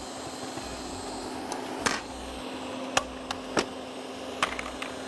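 A handful of sharp clicks and clacks as a flat beater is fitted to a stand mixer and the mixer head is handled over a steel bowl, over a steady faint hum.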